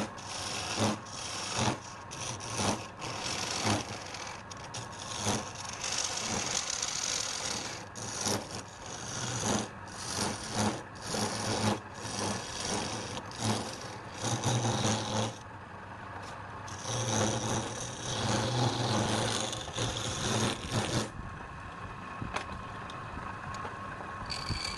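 Wood being cut on a turning lathe: a tool scraping against the spinning workpiece in repeated short strokes over a steady low motor hum. The cutting eases off about two-thirds of the way through.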